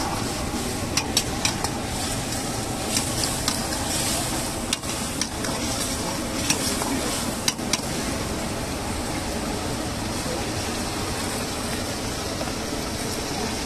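A metal ladle stirs and scrapes thick Manchurian gravy in a wok, clinking sharply against the pan several times in the first half, over a steady sizzle.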